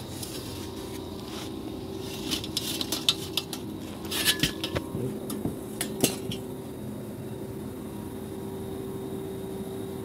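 Steady machine hum with a held tone, and a scatter of light metallic clinks and knocks from about two to six seconds in.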